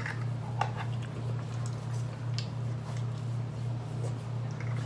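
A steady low hum, with a few faint soft clicks and sips as broth is drunk from a plastic bowl.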